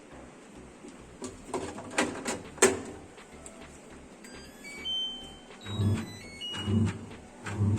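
Clicks and knocks of handling work, then from about four seconds in a run of short electronic beeps at several different pitches, and near the end a low thump repeating about once a second.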